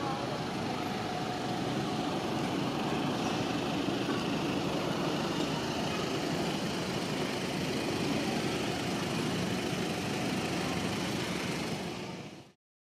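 Steady urban street noise with a vehicle engine running, fading out shortly before the end.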